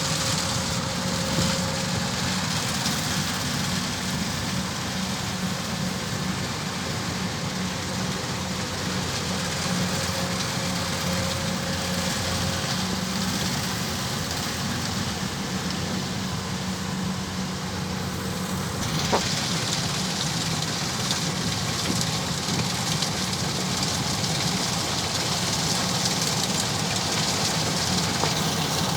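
Kubota DC-105X rice combine harvester running, a steady engine drone with machinery noise. About 19 s in, a brighter hissing layer comes in and carries on.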